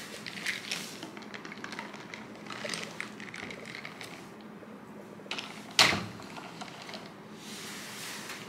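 Plastic drinking straw handled against the plastic lid of an iced-coffee cup: small crackling and scraping clicks, then one sharp pop about six seconds in as the straw punches through the lid.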